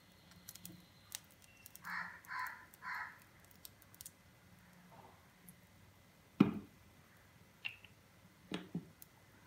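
Plastic bottle of coconut oil handled and poured into a non-stick frying pan, with small clicks and a sharp knock about six and a half seconds in, as of the bottle being set down. Three short calls sound about two seconds in.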